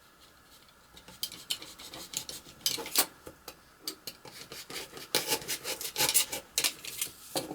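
Irregular crinkling and rustling of packaging being unwrapped by hand, starting about a second in.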